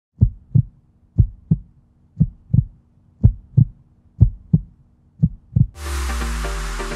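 Heartbeat sound effect: six double thumps, about one a second. Just before the end, a deep bass boom and electronic dance music come in.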